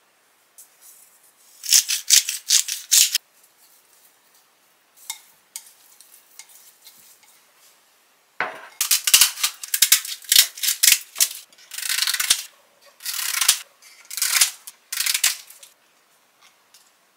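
Dry rice paper sheets being snapped and crumbled by hand, crackling in several sharp runs through the second half. Earlier, a shorter run of clicks and rattling comes from chopsticks mixing pork belly and starch in a glass bowl.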